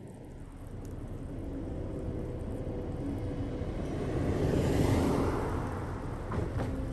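A motor vehicle driving past over a steady low rumble, growing louder to a peak about five seconds in and then fading.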